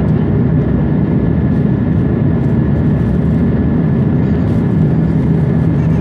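Airbus A330-300 airliner's jet engines and airflow: a steady, loud low rumble with a faint thin high whine.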